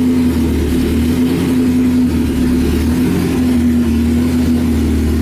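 1995 Honda Civic engine idling steadily, with a constant low drone.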